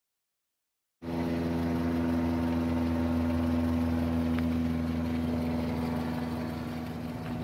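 An engine running steadily with a deep, even hum. It starts abruptly about a second in and cuts off suddenly at the end.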